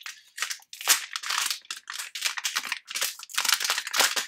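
Metallized anti-static bag crinkling and crackling in irregular bursts as it is handled.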